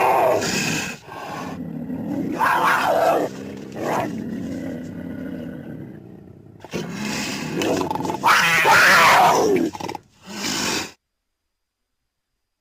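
Cougar (mountain lion) vocalising: a series of loud, harsh roar-like calls, the longest and loudest coming about seven to ten seconds in with a falling pitch.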